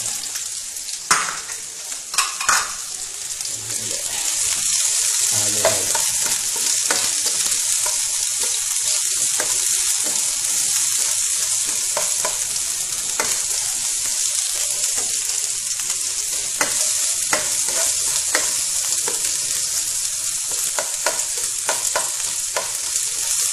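Chopped onions and garlic sizzling in hot olive oil in a frying pan, with a spatula clicking and scraping against the pan as they are stirred. The sizzle gets louder about four seconds in.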